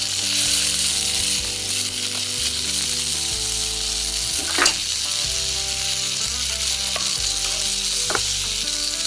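Steady frying sizzle, the pretend cooking sound of a toy kitchen stove, with two light clicks partway through.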